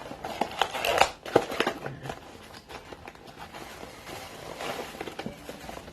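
Handling noises from things being moved on the table: a quick run of clicks and rustles with two sharper knocks about a second in, then fainter scattered clicks.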